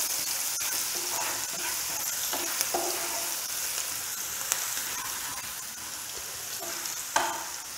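Chopped green chillies, ginger and coarsely ground whole spices sizzling in hot oil in a nonstick frying pan as a wooden spatula stirs them. A steady hiss with scattered small pops and spatula scrapes.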